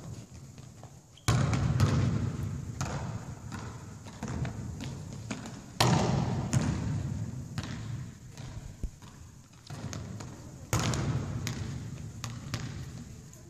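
Volleyballs being struck and slamming onto the court floor in a large echoing sports hall: three loud hits about five seconds apart, each with a long ringing echo, and smaller ball knocks in between.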